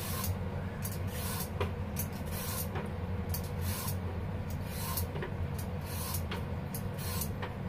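Vegetable peeler scraping down a raw carrot in quick repeated strokes, about two a second, over a steady low hum.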